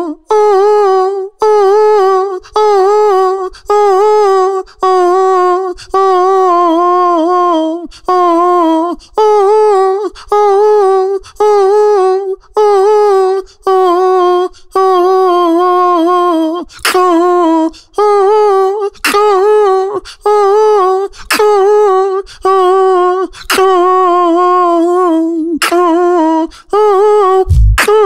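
Beatboxer humming a melody into a microphone in short phrases, the pitch wavering up and down. In the second half, sharp mouth-made snare clicks come in every couple of seconds, and a deep kick drum sound lands near the end.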